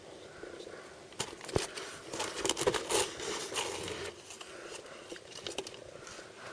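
Surprise-toy packaging being handled and opened by hand: irregular crinkling with small clicks and taps, busiest between about one and four seconds in, then quieter rustling.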